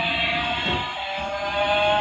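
Music: a held tone with many overtones that slowly rises in pitch and breaks off briefly under a second in.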